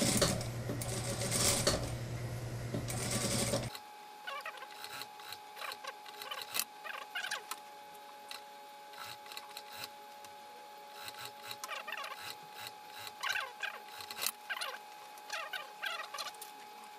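Industrial sewing machine running as a sleeve seam is stitched into a jacket, cutting off suddenly about four seconds in. After that, soft rustles and clicks of the nylon jacket being handled and smoothed, over a faint steady hum.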